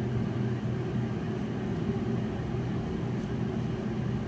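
Steady low mechanical hum with several even tones, running without change.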